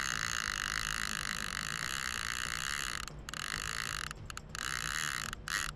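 Old conventional fishing reel's clicker buzzing steadily as a shark takes line and runs with the bait, stopping abruptly for brief moments several times in the second half.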